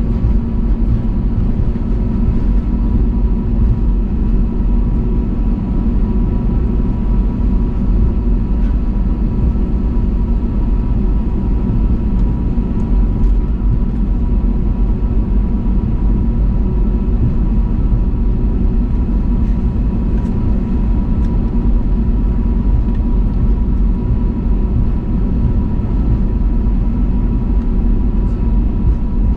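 Airbus A320neo's Pratt & Whitney PW1100G geared turbofan engines, heard inside the cabin: a steady rumble with a few steady tones over it that stays the same throughout.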